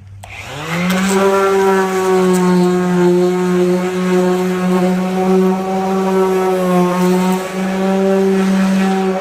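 Power sander spinning up about half a second in, then running at a steady high whine as it sands a car's front bumper, its pitch dipping slightly now and then.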